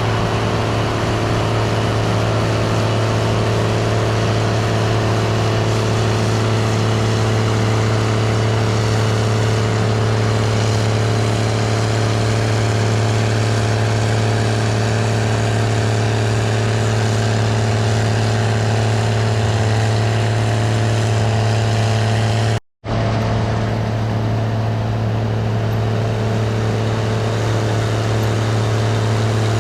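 Gleaner R72 combine running steadily under load while harvesting rye: a constant deep engine hum with the whir and rush of the threshing machinery over it. The sound drops out for a split second about two-thirds of the way through.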